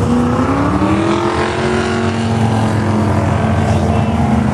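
A car engine revving up, its pitch rising over the first second or so and then holding nearly steady at higher revs.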